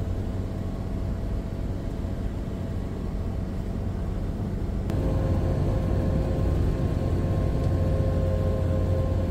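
Steady engine and tyre rumble heard inside the cabin of a van cruising on a highway, a little louder from about five seconds in.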